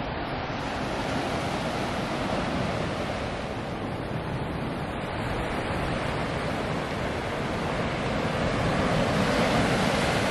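Ocean surf washing onto a rocky pebble beach, a steady wash of waves that slowly grows louder near the end.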